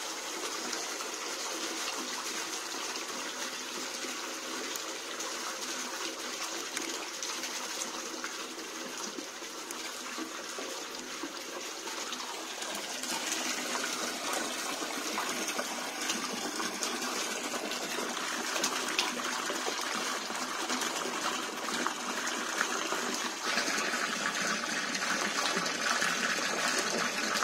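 Water pouring and splashing from a plastic bucket into a shallow fish tank as small fish are tipped out with it. The splashing is continuous and grows louder from about halfway through.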